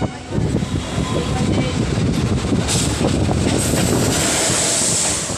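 Wheel and track rumble of a moving Indian Railways passenger train, heard at its open door. A little past halfway a rushing hiss builds and grows loud as an oncoming train, headed by an electric locomotive, passes close on the next track.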